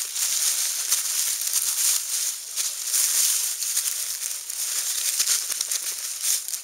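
Dry fallen leaves crackling and rustling as a beagle puppy rolls, scrabbles and pounces in them: a dense run of crisp crunches with a short lull about two and a half seconds in.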